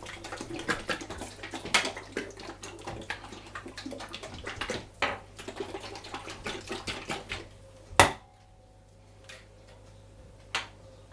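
A tin of paint and varnish stripper being shaken, the liquid sloshing and rattling inside for about eight seconds, followed by one sharp knock.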